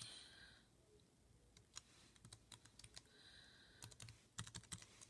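Faint typing on a laptop keyboard: scattered single key clicks, then a quicker run of several keystrokes toward the end.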